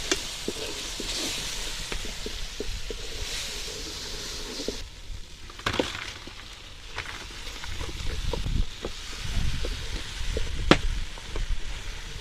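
Onions, capsicum and spices frying in oil in a cooking pot, sizzling, with scattered sharp clicks and knocks. The sizzle drops away suddenly about five seconds in, leaving a few louder knocks over a low rumble.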